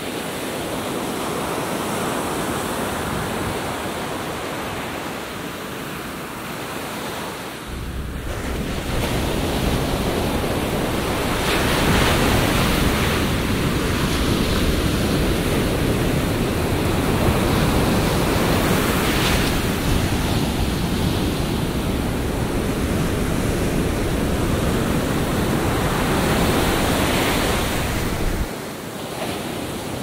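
Atlantic Ocean surf breaking and washing up the beach as a steady roar, swelling about every seven or eight seconds. Wind rumbles on the microphone from about eight seconds in until near the end.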